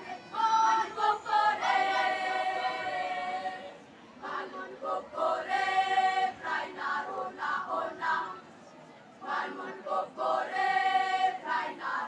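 Junior high school choir singing a cappella in held, sustained phrases, with short breaks between phrases about four seconds in and again around eight seconds in.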